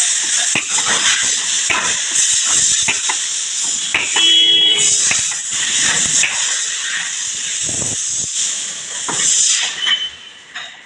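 A loud, steady hiss with scattered knocks and taps through it; the hiss stops a little before the end.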